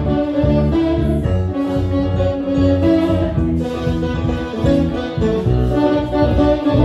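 Small jazz group playing live: saxophone, piano on a Roland Juno-DS stage keyboard, and electric bass guitar.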